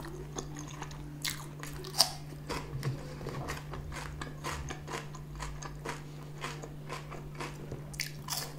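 Close-miked mouth sounds of eating french fries: chewing, soft crunches and wet smacks at an irregular pace, the loudest about two seconds in. A steady low hum lies underneath.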